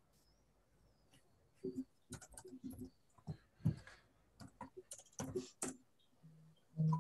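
Typing and clicking on a computer keyboard in irregular runs of taps, with a short low thump near the end.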